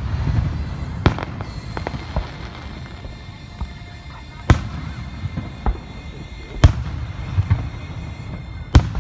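Aerial fireworks shells bursting: sharp booms a second or two apart, the loudest three in the second half, with smaller cracks between and a low echo rolling on after each.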